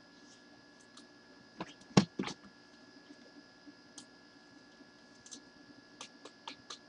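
Trading cards and their packaging being handled on a table: scattered light clicks and ticks, with a sharper knock cluster about two seconds in. A faint steady hum runs under them.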